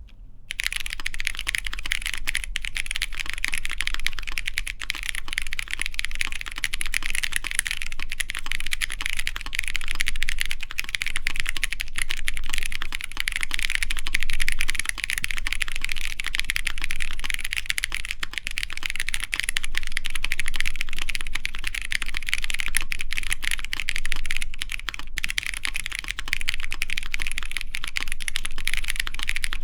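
Continuous typing on a Matrix Lab ME SE mechanical keyboard with stock Kailh Polia switches, an aluminum plate and GMK Pixel keycaps. Keystrokes follow one another in a dense, unbroken stream from about half a second in.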